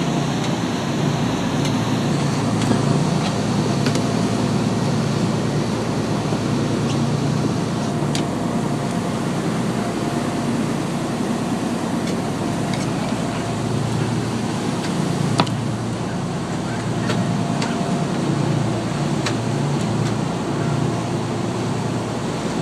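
Boat engine droning steadily while the boat is under way, mixed with rushing water from the wake, with a few sharp clicks scattered through.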